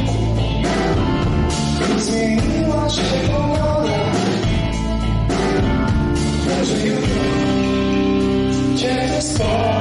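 Live rock band playing a song: lead vocal over electric guitar, bass and drum kit, with a steady beat.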